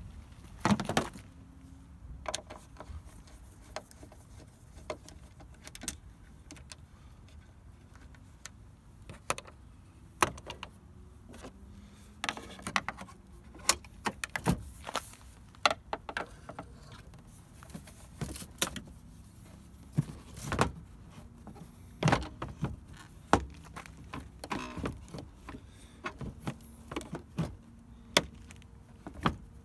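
A car's plastic headlight unit being worked on with a screwdriver and pulled at by hand: irregular clicks, knocks and plastic rattles, with a handful of sharper knocks.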